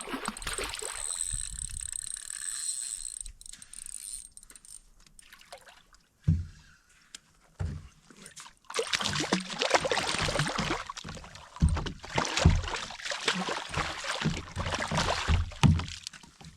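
Water splashing and sloshing in shallow water as a hooked redfish thrashes, loudest and most irregular in the second half.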